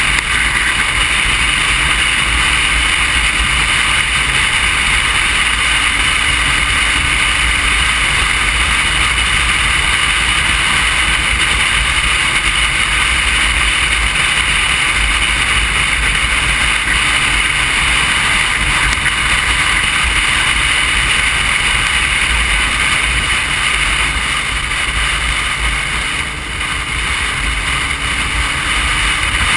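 Motorcycle riding at road speed: wind rushing over the microphone of a bike-mounted camera, with the engine running steadily underneath. It goes briefly quieter near the end.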